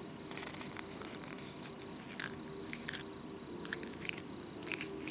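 Faint crinkling and rustling of a piece of stitched leather as it is held and turned over in the hands: short, scattered crackles at irregular intervals over a faint steady hum.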